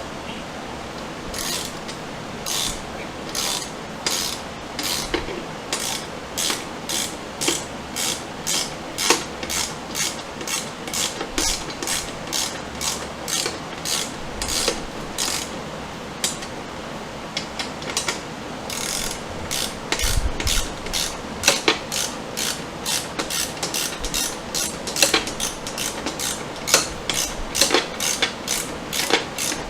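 Hand ratchet clicking in a steady series of short strokes, driving self-tapping screws into a garage door opener's power head. It pauses briefly once midway, then speeds up to about three clicks a second.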